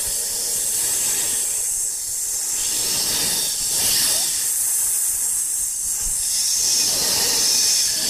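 A steady hiss, strongest in the high range, with no distinct events in it.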